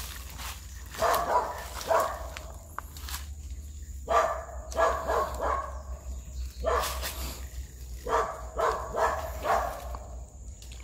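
A dog barking repeatedly, in short runs of two to four barks with brief gaps between.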